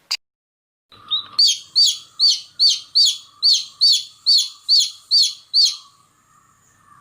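A domestic chick peeping: a run of about a dozen short, high chirps, a little over two a second. They start about a second in and stop at about six seconds.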